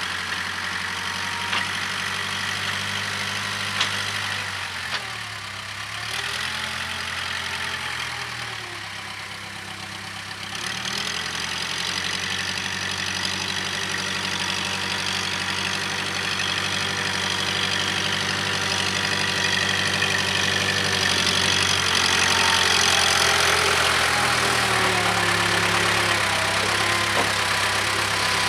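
Case 580K backhoe's diesel engine working, its speed dipping and rising several times in the first ten seconds, then held higher with a steady high whine over it. A couple of sharp knocks come in the first few seconds.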